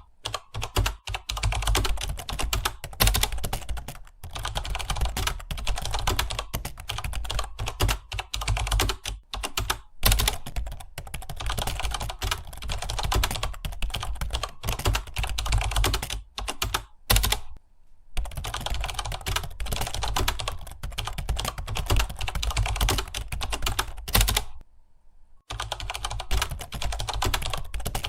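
Fast, continuous typing on a computer keyboard: dense, irregular key clicks, with two short pauses, about two-thirds of the way through and again near the end.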